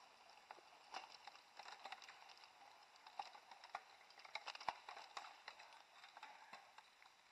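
Faint, irregular clicks and rattles of a pack of mountain bikes riding past on a dirt trail, over a steady hiss.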